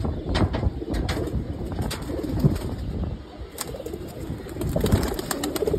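A cage of male domestic pigeons cooing, low throaty coos overlapping throughout, with short clicks and a wing flap among the birds.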